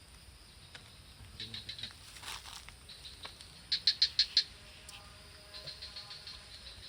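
Rapid trains of high chirps from a small animal, each a quick run of about eight pulses a second, repeating every second or two. The loudest run comes about four seconds in.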